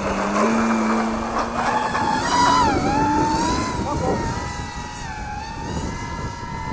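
RC model warbird's motor and propeller at full throttle on the takeoff run, a pitched whine that rises over the first two seconds. It is loudest about two and a half seconds in, dips briefly in pitch, then holds steady and quieter as the plane climbs away.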